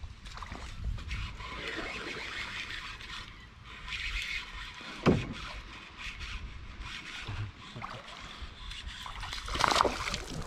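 Canoe on a small creek: a steady hiss of water with a low rumble underneath, a single sharp knock about halfway through, and a brief louder rush of noise near the end.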